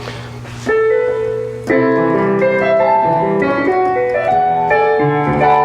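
Electronic keyboard with a piano sound played through a homemade monitor speaker box, as a test that the keyboard works: a held note about two-thirds of a second in, then chords and a melody of changing notes from about a second and a half.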